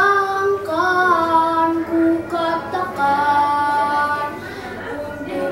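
A young boy singing solo, holding long notes that step up and down in pitch, with brief breaks between phrases.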